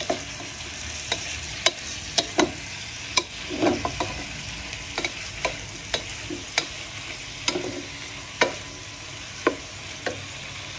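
Wooden spatula scraping and knocking against a non-stick pan while stir-frying pork and garlic cloves, with irregular sharp knocks over a steady sizzle.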